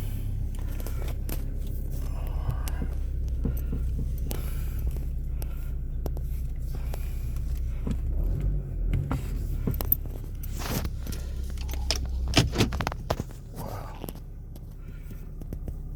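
Clicks, knocks, rattles and scraping of a speaker box and trunk parts being handled and pulled out of a car's trunk, over a steady low hum. The sharpest knocks come about twelve seconds in, and the hum drops away shortly after.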